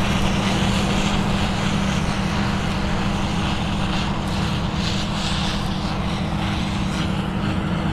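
Harvest machinery running: a steady engine drone with a constant low hum and a wash of mechanical noise.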